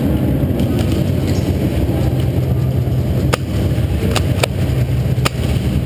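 Steady low hum with scattered sharp cracks of airsoft fire: four short snaps come about halfway through and near the end, two of them close together.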